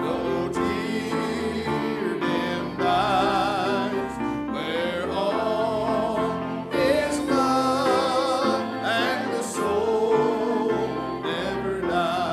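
Congregation and song leader singing a gospel hymn with vibrato in their voices, over piano accompaniment.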